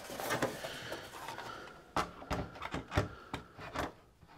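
Plastic front bezel and lens of a Corvette instrument cluster being set down onto the gauge panel: a soft rubbing scrape, then several light plastic clicks and knocks as it is pressed into place.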